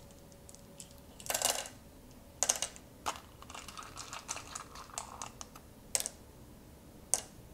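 Oware seeds clicking against one another and the carved wooden board as a hand picks them up and drops them into the cups: irregular light clicks, with a short rattle about a second in.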